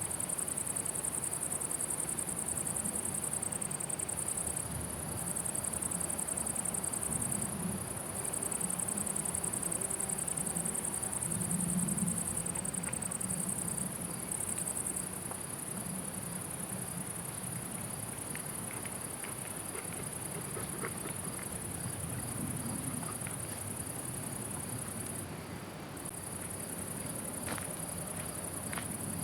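Meadow crickets stridulating in a continuous high-pitched chirr that breaks off briefly a few times, over a low background rumble.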